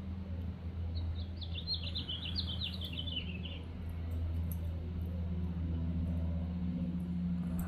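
A songbird sings a quick trill of rapid notes that starts about a second in, drifts down in pitch and stops after about two and a half seconds. It sounds over a steady low hum that grows a little stronger in the second half.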